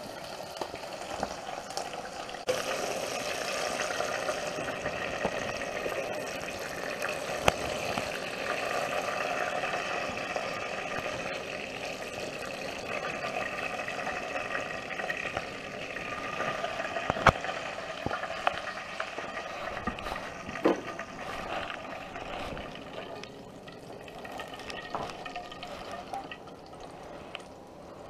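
Food cooking on a stove, sizzling and bubbling in a steady hiss that eases off after about twenty seconds, with a few sharp clicks.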